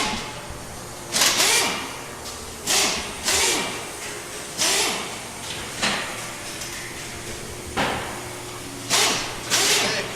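Cardboard wheel packaging being torn and scraped open in about nine short rasping strokes, roughly one a second, some with a brief squeak, over a low steady hum.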